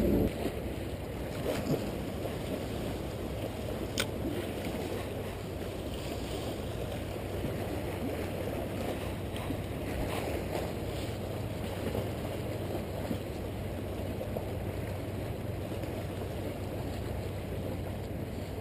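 Small waves washing and splashing against jetty rocks, with wind rumbling on the microphone and a few faint clicks.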